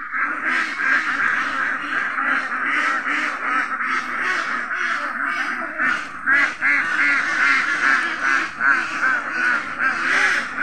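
A large flock of domestic ducks quacking continuously in a dense, overlapping chatter as they crowd in to be fed.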